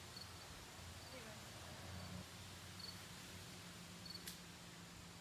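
Faint short high chirps about once a second, from a cricket, over a steady low hum, with a single sharp click about four seconds in.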